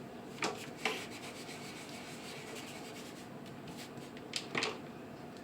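Watercolor paintbrush rubbing on watercolor paper: a few short scratchy strokes, two near the start and two near the end, with faint rubbing between.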